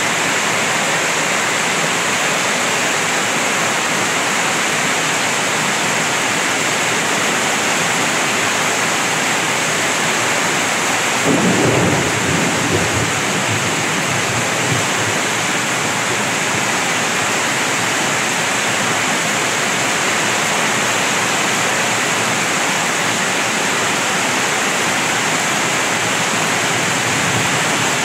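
Heavy typhoon rain pouring steadily onto the road and ground, with a brief low rumble about eleven seconds in.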